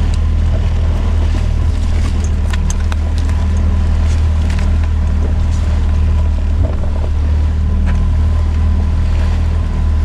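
Outboard motor on a small inflatable boat running at a steady speed, with a few light clicks about two and a half seconds in.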